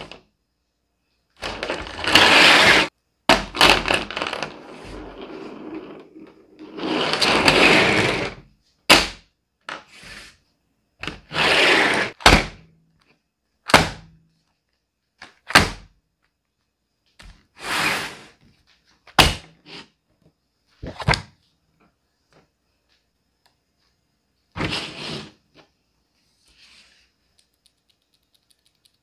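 Art supplies being handled and set down on a tabletop: a series of sharp knocks and clacks, with several longer rustling scrapes in the first half, separated by silent gaps.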